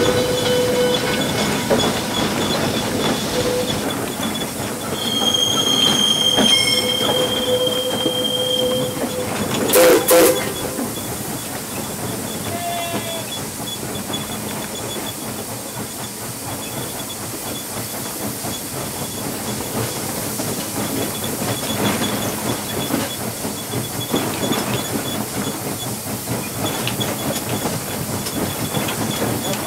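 Pennsylvania Railroad 643 steam locomotive under way, heard from inside its cab: steady steam hiss with wheels clattering over rail joints. There is a short loud burst about ten seconds in.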